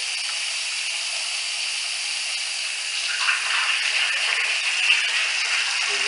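Water running from a bathroom sink faucet into the basin in a thin stream, a steady splashing hiss that grows slightly louder about halfway through. The water comes through old galvanized supply pipes narrowed by mineral build-up, which restricts the flow.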